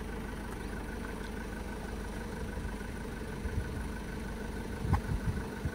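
Camper van engine idling steadily, with a faint regular ticking above the hum. A few soft knocks come about five seconds in.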